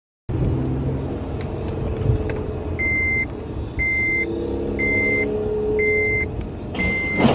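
Driving noise inside a moving car: engine and road noise, with a short high-pitched electronic beep repeating about once a second from about three seconds in, and a brief loud burst of noise near the end.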